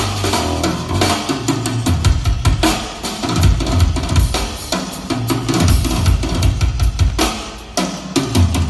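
Drum-heavy music with a pounding kick drum and snare hits, played loud through a TPA TP-1000 compact three-way line array loudspeaker with dual 13.5-inch woofers during a sound check.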